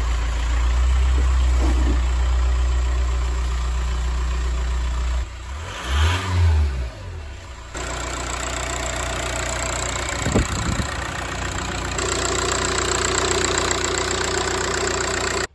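2004 Volkswagen Beetle TDI's 1.9-litre four-cylinder diesel engine idling steadily, just started after a fuel filter change to prime the fuel system. A heavy low rumble drops away about five seconds in, and there is a single knock about ten seconds in.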